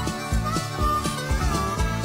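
Instrumental music with a steady beat and a lead melody that slides up and down in pitch.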